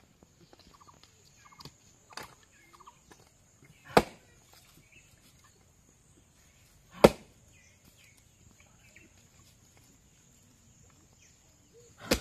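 Firewood being chopped: heavy blows several seconds apart, the loudest about four and seven seconds in and another near the end, with lighter knocks between.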